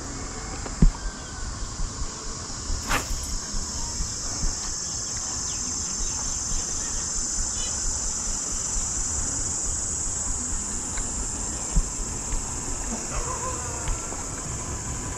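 A steady, high-pitched insect chorus over a low rumble, with scattered soft knocks and a sharp click about three seconds in.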